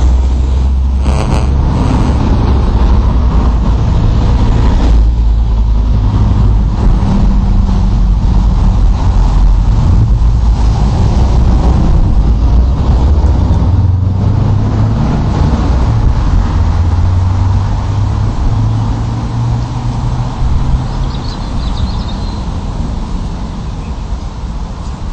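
Loud, deep engine drone, steady for most of the stretch and easing off over the last several seconds.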